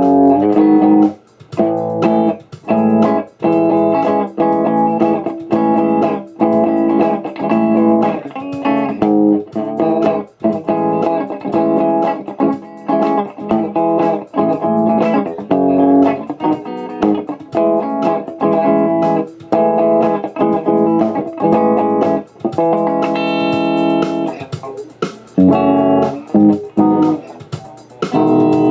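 Electric guitar, a Telecaster, played through an Orange Tiny Terror valve amp. Chords are strummed in short phrases, cut off with brief breaks, and a brighter, higher passage comes near the end.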